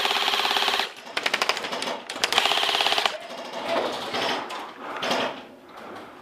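Airsoft electric guns firing on full auto: a rapid mechanical clatter in bursts, one through the first second, a broken stretch after it, and another burst of under a second about two seconds in, with quieter clatter after.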